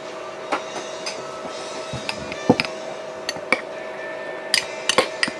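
Dishes and utensils being handled: a scattering of sharp clinks and knocks, the loudest about halfway through and near the end, over a steady hum.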